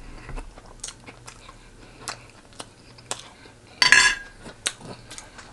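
Close-up eating sounds from a fried chicken mukbang: scattered small wet clicks and crunches of chewing, with one louder crackly crunch about four seconds in.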